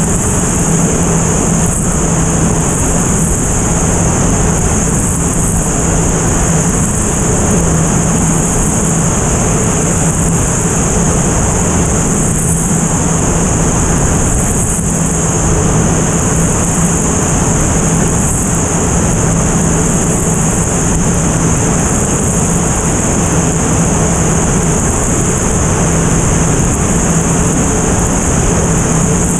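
Single-engine propeller airplane in cruise, heard from a camera on its tail: a steady engine and propeller drone with a constant low hum under loud, even wind rush.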